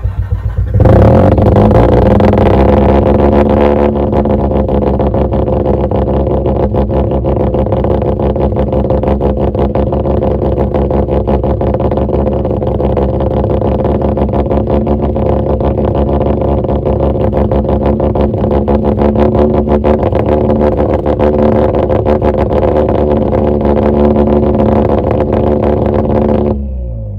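Turbocharged Mazda RX-8's rotary engine starting about a second in and idling steadily through its exhaust. The idle runs a little higher for the first few seconds, then settles. The sound falls away near the end as the engine is shut off.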